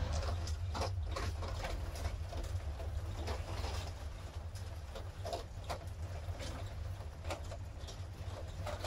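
Ford E350-based step van driving on a gravel road, heard from inside the cab: a steady low engine and road drone with frequent irregular clicks and rattles.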